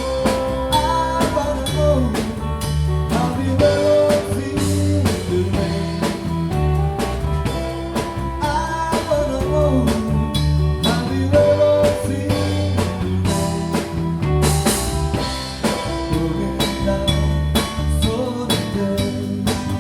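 Rock band playing a song with guitar, bass and drum kit over a steady beat.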